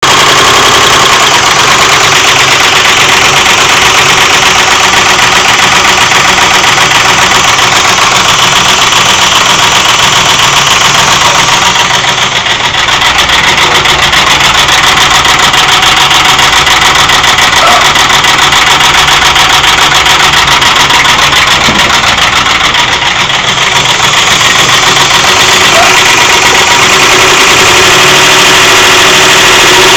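A 2001 Ford F-150's 4.6-litre V8 engine running with a rapid, even knocking that keeps time with the engine, the engine knock the truck has developed. The level dips briefly twice.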